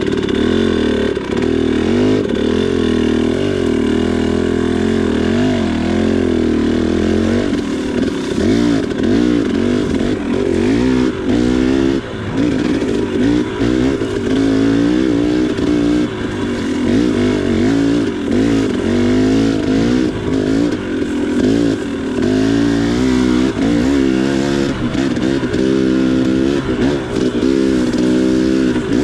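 2019 KTM 300 XC single-cylinder two-stroke dirt bike engine running under the rider's throttle on slow singletrack. Its pitch holds fairly even for the first several seconds, then rises and falls again and again with quick throttle openings and closings.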